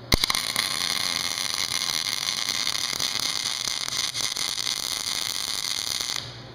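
MIG welding arc, struck just after the start, crackling steadily for about six seconds and then cut off, as a bead is run around a cracked valve seat in a Cat D343 diesel cylinder head so the seat can be removed.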